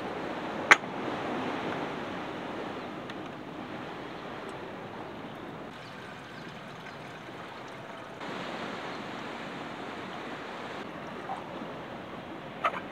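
Water running from the plastic tap of a camping water container into a metal camping kettle, over the wash of surf. A sharp clack from the kettle lid comes about a second in, and another sharp click comes near the end as the tap is handled.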